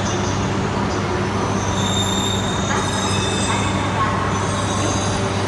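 Shinkansen train moving through the station platform: a steady running rumble with a low hum, and thin high-pitched tones that come and go above it.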